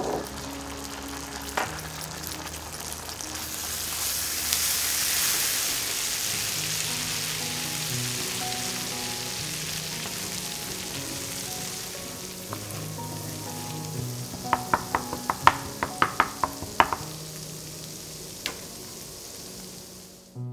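Garlic, herbs, tomato paste and mustard sizzling in butter in a frying pan while a wooden spatula stirs them. The sizzle is loudest in the first half and then eases off, and a quick run of sharp clicks comes about three quarters of the way in.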